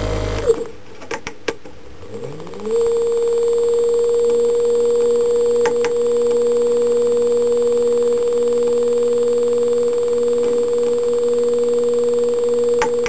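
Permanent-magnet motor under STM32 field-oriented speed control reversing: its running tone drops out, a few clicks follow, then its whine rises in pitch as it spins up the other way and holds a steady high tone at its set speed of about 1,200 rpm in reverse.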